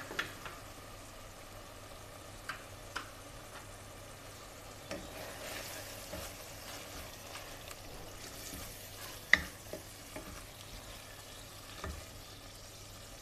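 Minced meat sizzling in oil in a steel pot, stirred with a wooden spoon that knocks against the pot now and then. The loudest knock comes about nine seconds in.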